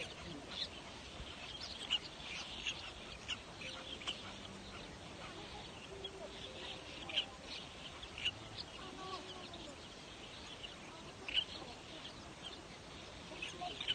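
Waterbird nesting colony calling: many short, high calls and clicks overlapping, with a few lower drawn-out calls among them.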